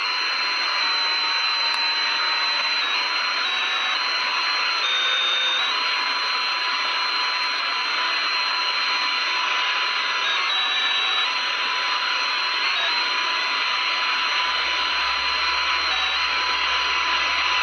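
Radio receiver hiss: steady static on a frequency with no signal, with faint whistling carrier tones through it that shift slightly in pitch now and then. A low hum joins about eleven seconds in.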